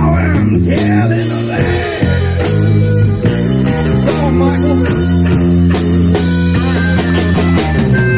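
Live blues-rock band playing an instrumental passage: electric guitar over electric bass and drums.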